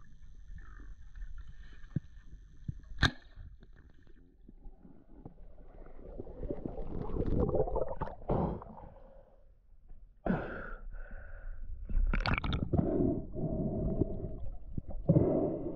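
A spearfishing diver moving in and out of the water. It starts with muffled underwater noise and a single sharp click about three seconds in, then water sloshes and gurgles as the diver breaks the surface, followed by bursts of splashing and breath near the end.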